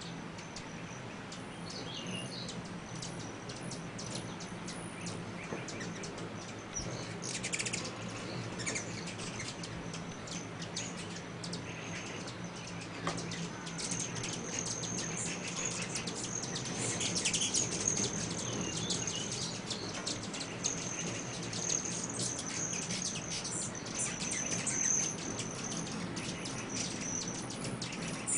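Many hummingbirds at feeders, giving constant rapid high chips and twitters, with the steady hum of their wings underneath.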